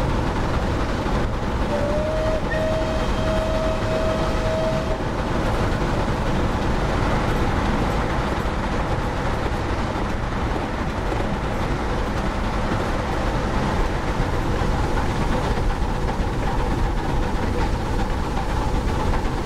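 Model steam train with realistic sound running past: a steady rumble of the train on the move, with a held tone about two seconds in that slides up briefly and lasts about three seconds.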